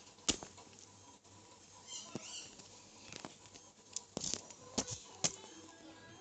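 Pocket knife being handled: a series of sharp clicks and taps, about seven in all, the loudest one just after the start, with a brief rustle about two seconds in.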